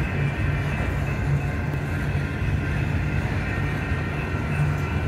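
Double-stack intermodal freight train's well cars rolling past, a steady low rumble of wheels on rail with a faint high whine over it.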